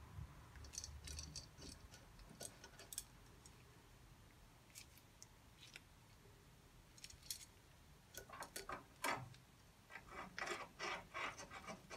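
Faint scattered clicks and light metallic taps of a brake pipe and its fittings being handled and offered up to the master cylinder, with a denser run of taps and rubbing near the end.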